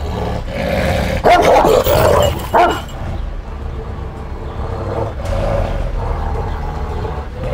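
Large Malaklı Anatolian shepherd dog giving several deep, loud barks between about one and three seconds in, then a low, steady growl. It is a warning aimed at a stranger edging toward it.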